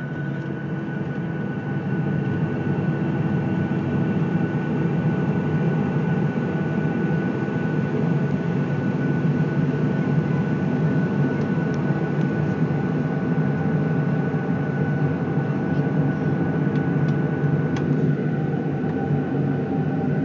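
Boeing 737-800's CFM56-7B turbofan engines running at low power, heard from inside the cabin over the wing. The sound is a steady deep hum with a thin, steady high whine above it, growing slightly louder about two seconds in.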